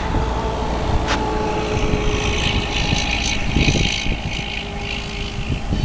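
Coal train's freight cars rolling on the rails: a steady low rumble with thin metallic wheel squeal, and a couple of sharp clicks in the first second or so.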